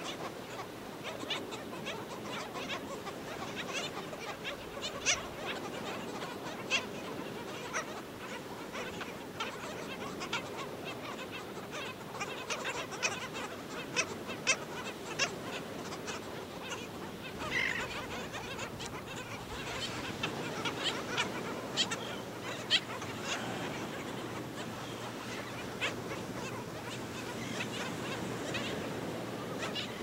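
A black skimmer colony calling: many scattered short, sharp yelping calls, some louder than others, over a steady background noise.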